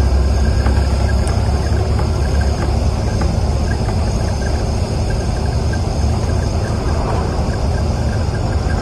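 Bus engine running with road noise inside the bus cabin as it drives: a steady low drone under a constant rumble, with light rattles now and then.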